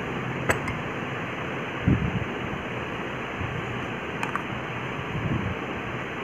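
Steady background hiss with a few light handling sounds: a sharp click about half a second in, another near four seconds, and soft low knocks around two and five seconds, as a steel spoon works chutney across a bread slice on a wooden board.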